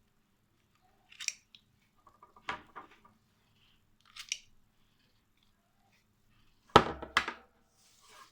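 Restored antique pliers being handled: a few sharp metal clicks and clinks, the two loudest close together near the end, with a brief ring.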